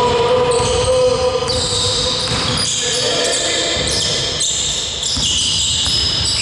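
Basketball game sounds in a sports hall: sneakers squeaking on the court floor over and over and the ball bouncing, with the hall's echo.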